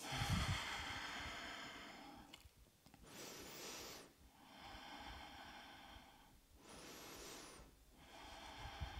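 A woman's slow, faint breathing close to the microphone: five separate breaths in and out, evenly spaced, with short quiet gaps between them. A soft low thump comes right at the start.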